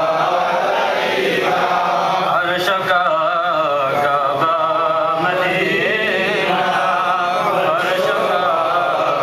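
Islamic devotional chanting in praise of the Prophet: melodic voices with long wavering, ornamented notes.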